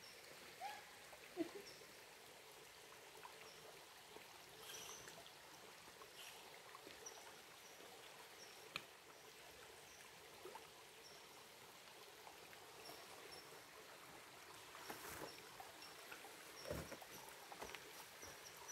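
Near silence: a faint steady hiss, with scattered soft clicks and faint short high chirps.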